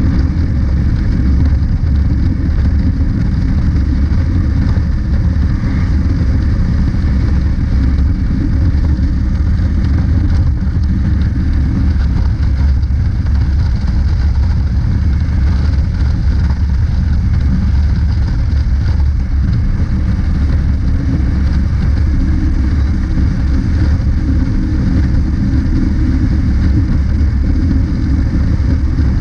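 Honda CB500X motorcycle cruising at steady highway speed: a constant, heavy wind rush on the camera microphone over the engine's drone.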